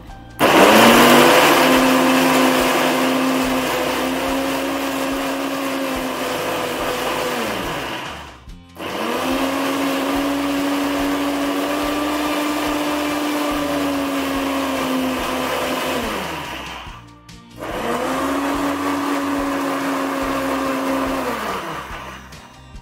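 Electric mixer grinder grinding mint chutney with a little water to a fine paste, run in three bursts of about eight, seven and five seconds. At the end of each burst the motor's pitch falls as it spins down.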